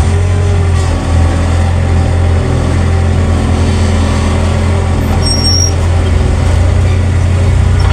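A large vehicle engine running steadily, a low, even drone with no change in speed.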